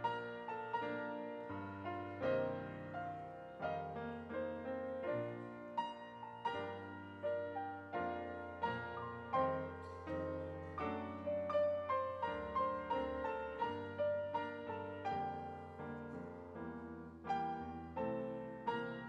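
Piano playing a slow, gentle piece: struck notes that ring and fade, at about one or two a second, over sustained bass notes.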